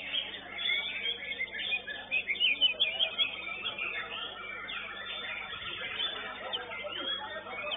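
White-rumped shama (murai batu) song: a dense run of quick chirps and whistles, several calls overlapping.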